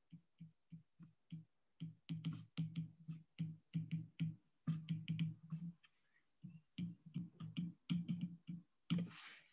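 Stylus tapping on a tablet's glass screen while handwriting: a faint run of quick, irregular light taps, some in close clusters.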